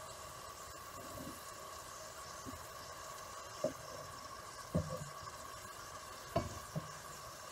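Meatballs sizzling faintly in hot oil in a skillet, with four short knocks in the second half as more meatballs are set into the pan with a fork.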